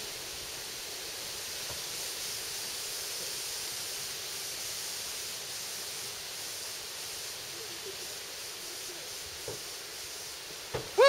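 Steady, even background hiss with no gunshots, and a faint tick or two near the end.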